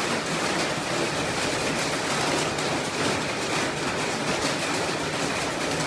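Hailstones and rain falling hard, a steady dense patter and clatter of many small impacts on the ground and nearby surfaces.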